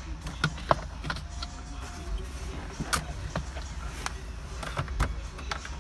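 Scattered light clicks and knocks of plastic car interior trim being handled, as a kick panel held by pop clips is worked loose and pieces are set down on a rubber floor mat, over a low steady hum.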